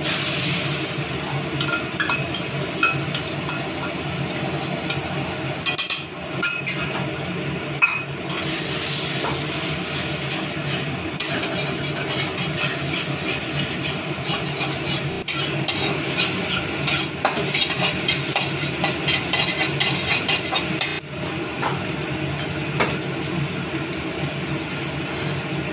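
Beaten eggs poured into hot oil in a steel kadai, sizzling, while a flat steel spatula stirs and scrambles them, scraping and tapping against the pan. The tapping comes quick and dense through the middle.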